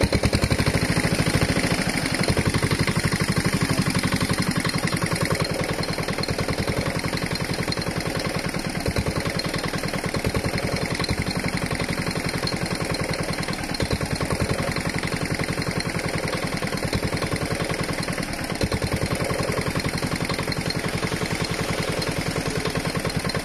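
Small engine running steadily with an even, rapid chugging, typical of the engine-driven pump that dewaters a pond.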